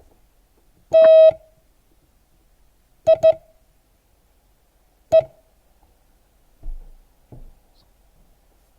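Morse code side tone sending the word TIE slowly, letter by letter at one steady pitch. First comes one long dah (T), then two short dits (I), then a single dit (E), with about two seconds between letters.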